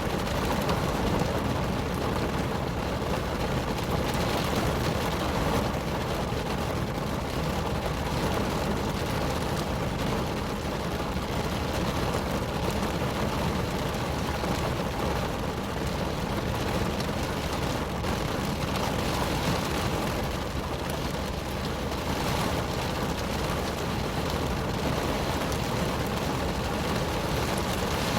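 Rain falling steadily on a car's roof and windows, heard from inside the cabin as an even, unbroken patter with a low rumble beneath it.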